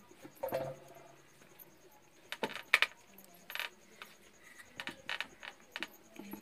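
Stainless steel plate and steel tumbler clinking and tapping as dough circles are cut and lifted off the plate: a scattering of sharp metallic clicks, a few with a short ring, the loudest a little under halfway through.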